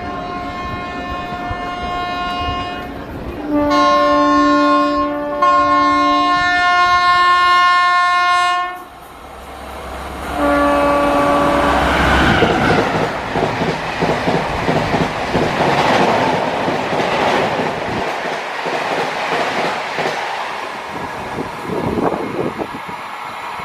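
Indian Railways locomotive horn blown in three blasts, the middle one long, as a train approaches, then the train rushing past with its wheels clattering over the rails.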